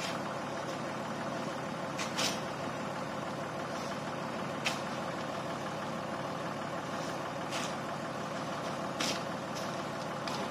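Large truck's diesel engine idling steadily, with a few brief thuds at irregular intervals as bundles of pineapple plants are dropped from the truck bed onto the pile.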